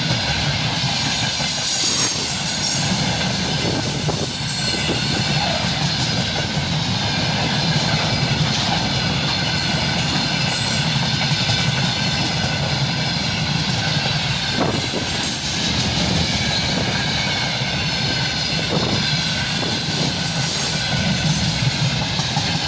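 Freight train wagons rolling past steadily, with a few faint knocks over the rails and brief high-pitched wheel squeals near the start and again near the end.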